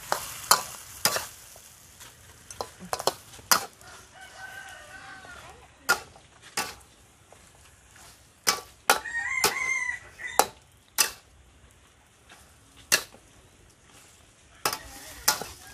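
Two metal spatulas clanking and scraping against a steel wok in irregular strikes while chunks of wild boar in rendang paste are stirred and fried. A rooster crows twice in the background, once a few seconds in and again about two thirds of the way through.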